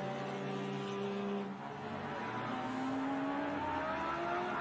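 Race-car engine sound effects: several engine tones running steadily, one slowly rising in pitch near the end.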